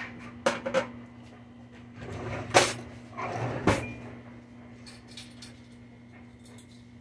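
Kitchen handling knocks and clatter, like a cupboard door or drawer being opened and shut: two small clicks near the start, then rustling and a sharp knock about two and a half seconds in, and another knock about a second later. A faint steady hum runs underneath.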